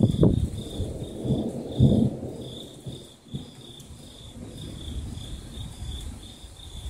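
Thunder rumbling low for the first two seconds and then dying away, with crickets chirping in a steady pulse behind it.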